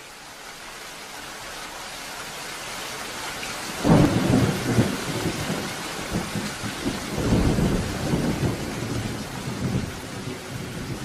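Steady rain fading in, with a sudden thunderclap about four seconds in and more rolling thunder a few seconds later.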